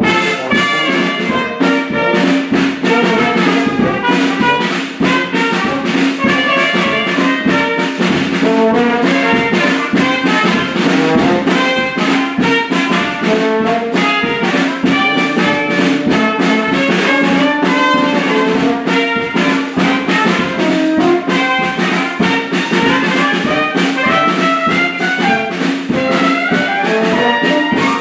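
Live brass band music: trumpets and trombones play a fast, busy tune over a held low note, with quick percussive taps. It stops abruptly at the very end.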